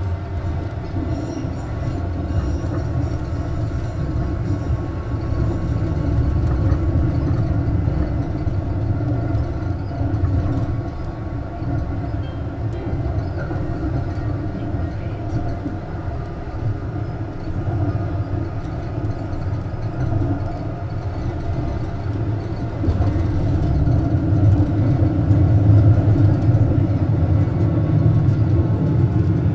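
Duewag M6D articulated tram no. 291 running along the line, heard from on board: a steady rumble of wheels and running gear on the rails that grows louder near the end.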